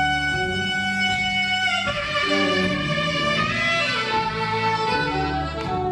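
Live band playing an instrumental break: a lead melody instrument holds long, sustained notes, moving to new notes about two and three and a half seconds in, over bass and drums.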